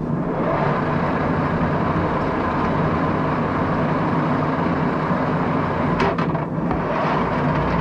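Axelson lathe's geared 24-speed headstock running at about 150 RPM, a steady dense gear whir with a low hum, its spindle driven forward again through the reversing clutch. There is a brief dip in the sound about six seconds in.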